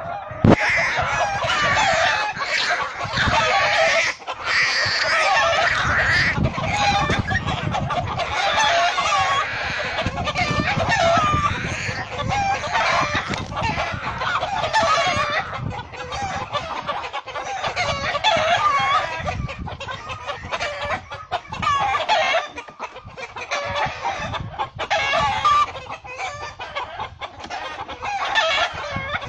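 Hen squawking and clucking loudly, almost without a pause: the frantic calling of a mother hen fighting a hawk to protect her chicks.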